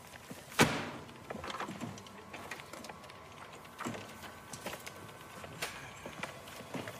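Office handling sounds: a wire cart loaded with papers being pushed and papers and folders being handled, with scattered clicks and knocks, the loudest about half a second in.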